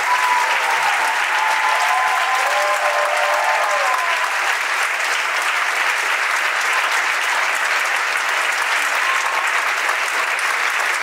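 Audience applauding steadily, with a few voices calling out over it in the first few seconds.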